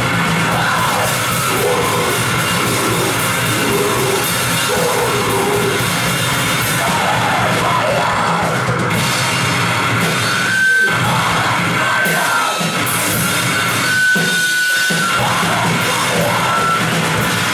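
Live heavy metal band playing loud: distorted electric guitar, drum kit and yelled vocals. From about halfway through, sustained high guitar notes ring over the band, which breaks off briefly twice.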